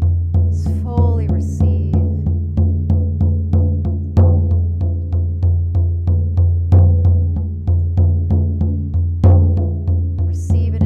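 Hand-held shamanic frame drum beaten with a beater in a fast, even journey rhythm, each stroke ringing deep, with a louder stroke every two and a half seconds or so.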